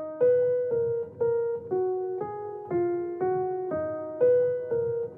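Background music: a keyboard melody of single struck notes, about two a second, each fading before the next.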